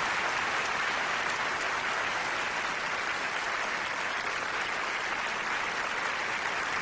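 A large audience applauding steadily in a big hall, a dense, even wash of clapping.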